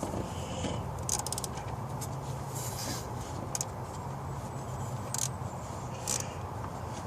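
Light metallic clicks and scrapes of a socket wrench on a swivel extension working a bolt, with short runs of rapid ticking, over a steady low hum.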